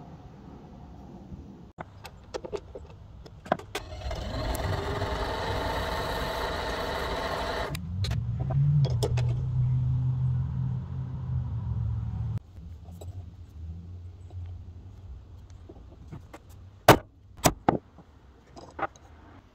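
Workshop machine noise: a power tool runs loudly for about four seconds, then a machine hums steadily at a low pitch for about four more. Near the end come three sharp metal strikes, hammer blows driving the punch of a steel disc-cutter block through the coin.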